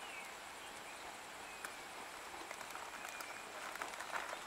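Faint countryside ambience: a few short, falling bird chirps over a steady hiss, with scattered light clicks near the end.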